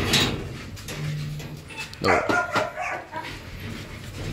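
Large dogs barking from their kennels at feeding time, a few barks with gaps between them.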